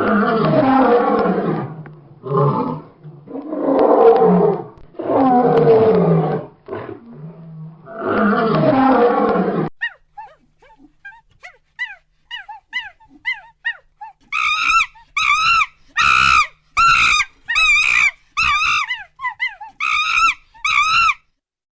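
A lion roaring and growling in several long bouts. From about ten seconds in, a different animal gives a quick run of short high chirps, then a series of short quavering calls.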